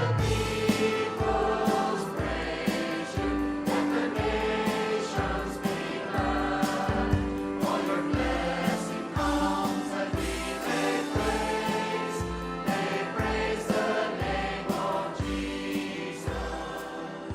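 Church worship group singing together with a praise band, over a steady beat. The music gradually gets quieter towards the end.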